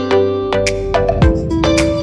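Instrumental background music with melodic notes over a regular beat.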